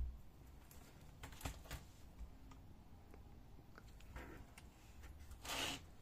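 Faint clicks and handling noise from a plastic laptop top case being lifted away from the base, with one brief louder rustle about five and a half seconds in.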